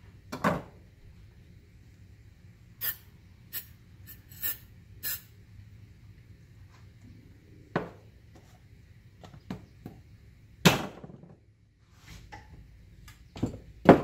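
Fluid Film aerosol can giving several short hissing sprays, then a longer one, into the inside of a black handle piece to lubricate it so it slides on easily. Knocks and rubbing from handling the parts come in between.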